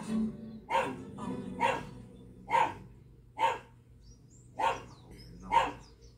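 A dog barking over and over, about one bark a second, in a steady series.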